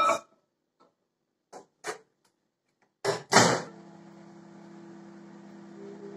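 A few light knocks as a bowl goes into a microwave oven, then a couple of loud clunks about three seconds in as the door shuts. The oven then starts running with a steady hum.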